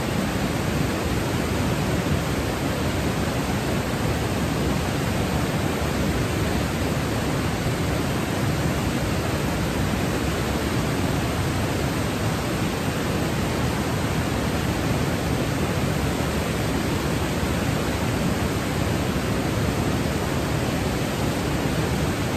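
Granite Falls rushing steadily: white water cascading over broad granite slabs.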